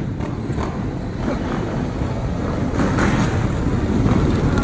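Motor vehicle engines running in the street, a steady rumble that grows louder over the last couple of seconds.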